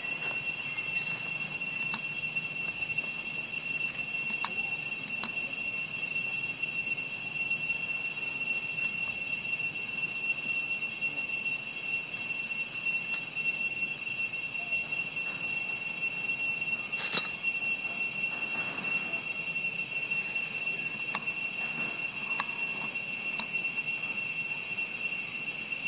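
Loud, steady insect chorus in forest: a shrill continuous buzz with a second, lower steady tone beneath it, unbroken throughout. A few faint clicks sound over it, the clearest about two-thirds of the way through.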